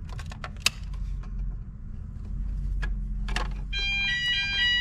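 Scattered clicks and knocks of handling over a low hum, then, nearly four seconds in, a building fire alarm sounder starts during the weekly test: a steady, high-pitched electronic tone made of several pitches at once.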